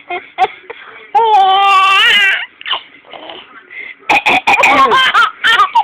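Baby laughing hard: a long, high-pitched held squeal about a second in, then a quick run of short laughs near the end.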